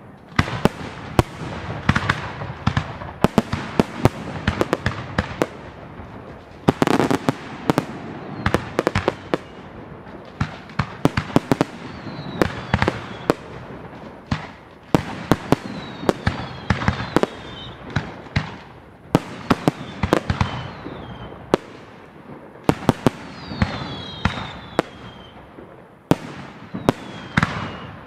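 Fireworks display: aerial shells bursting one after another, sharp bangs often in quick clusters of cracks, with a few falling whistles in the second half.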